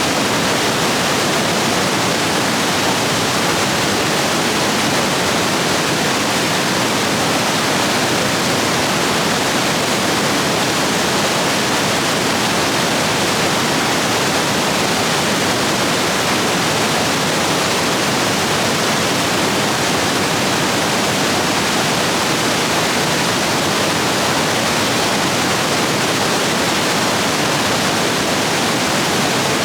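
Rapids rushing over rocks, swollen after heavy rain, a loud steady rush of water.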